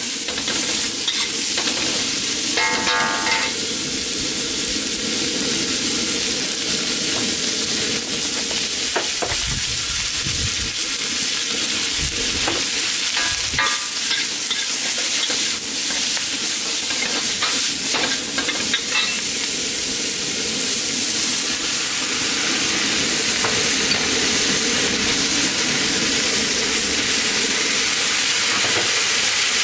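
Vegetables stir-frying in a hot seasoned wok: steady, loud sizzling, with a metal wok spatula scraping and clicking against the pan. Near the end the sizzle grows a little louder as bok choy is tossed in.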